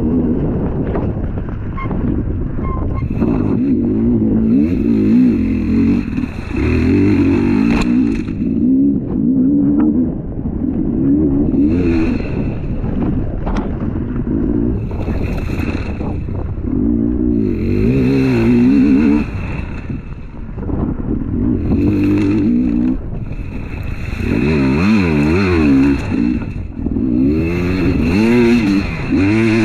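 Dirt bike engine revving up and dropping off over and over as the rider works the throttle along a rough, muddy trail, its pitch rising and falling every second or two.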